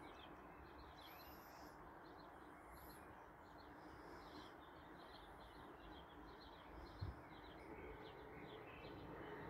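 Small birds chirping in quick repeated notes, with a few higher whistled calls, over a faint steady background hum. A single brief thump about seven seconds in.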